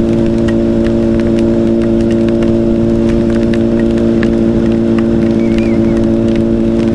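Honda CBR1000RR's inline-four engine holding a steady cruising note at constant speed, heard from the rider's seat over wind rush and wet-road noise, with scattered light ticks of rain.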